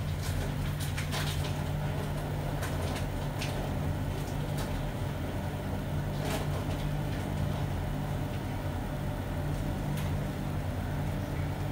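A steady low mechanical hum, with a few faint pops and crackles from the sandwich frying in the pan.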